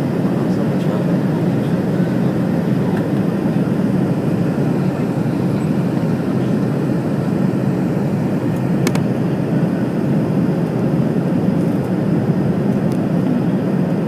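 Steady low drone of an airliner cabin in flight, the even rumble of engines and airflow heard from a window seat, with one brief click about nine seconds in.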